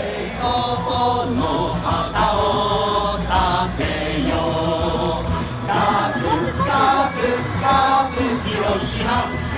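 Large baseball stadium crowd singing a team cheering song together, in held phrases over the general crowd noise.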